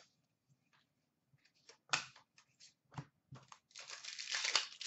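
A few sharp taps as trading cards are handled, then a trading-card pack's foil wrapper being torn open with a dense crinkling for the last second or so.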